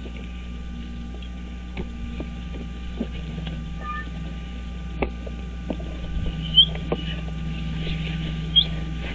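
Bald eagle nest microphone: a steady low hum with scattered small knocks and rustles as the eagles shift on the nest sticks, and two short high chirps in the last few seconds as one eagle rises with wings spread over its mate.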